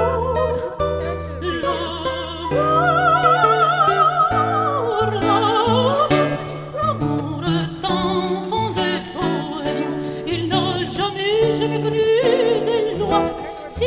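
Music in operatic style: a melody with strong vibrato over orchestral accompaniment, with sustained bass notes shifting every second or two.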